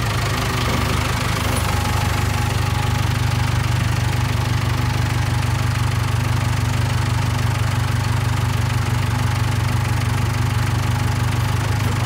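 Case 580K backhoe loader's diesel engine running steadily at a low, even pitch.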